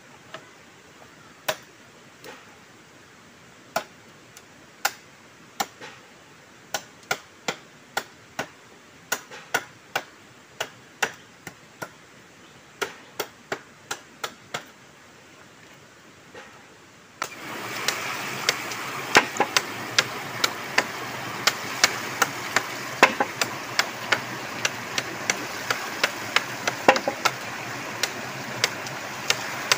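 A knife chopping and knocking at split bamboo in sharp, irregular strikes, about one or two a second. About 17 seconds in, the steady rush of a shallow stream over rocks comes in suddenly and becomes the loudest sound, with the knocks going on over it.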